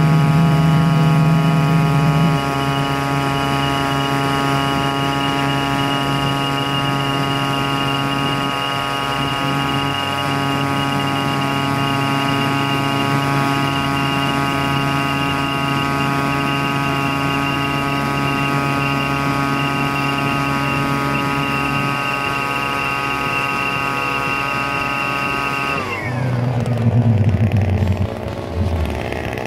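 Homemade turbojet engine running steadily with a high, many-toned whine over a rushing roar. Near the end it spools down, the whine falling steadily in pitch as the engine slows.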